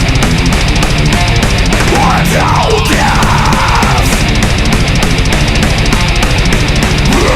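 Death metal recording: fast, evenly repeating drums under heavily distorted guitars, loud throughout. About two to three seconds in, a higher line slides up and down in pitch over the riff.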